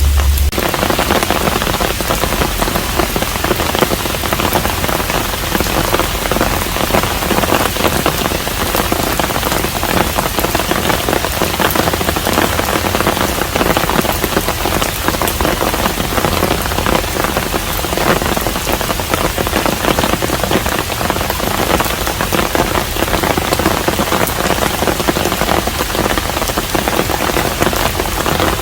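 Steady rain falling on a traditional Korean hanok, a dense, even patter of many drops.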